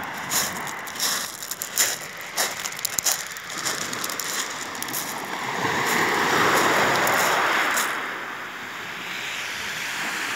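Footsteps crunching on a pebble beach, then a wave breaking on the shingle about six seconds in and washing back, with softer surf after it.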